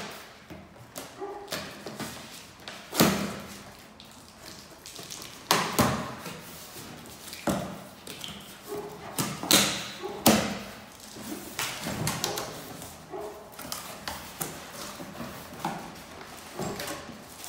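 A box cutter slitting the packing tape on a cardboard carton, and the cardboard flaps being pulled open and bent back. Several sharp knocks and thuds against the box, with short scraping and tearing sounds between them.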